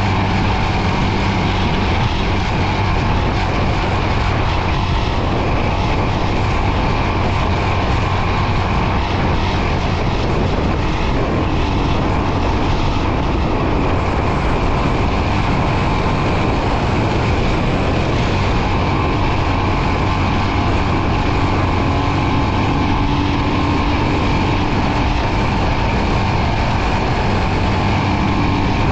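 Royal Enfield Himalayan 411's single-cylinder engine running steadily as the motorcycle is ridden, its note holding level throughout.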